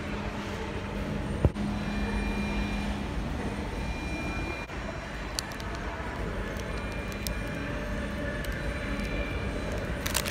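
Steady low rumble of fast-food restaurant room noise. A sharp knock comes about a second and a half in, a few faint clicks follow later, and there is a short crackle near the end.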